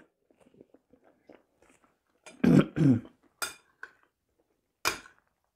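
Soft chewing, then a woman clearing her throat twice in quick succession about halfway through, followed by a few sharp clicks of a spoon against a glass salad bowl.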